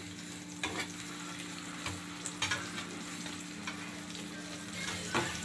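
Pieces of cheese frying in oil in a skillet, a steady sizzle, with a spatula knocking and scraping against the pan a few times as the pieces are turned.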